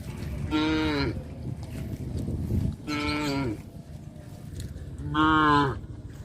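Cows mooing: three separate moos about two seconds apart, each under a second long and falling in pitch at the end.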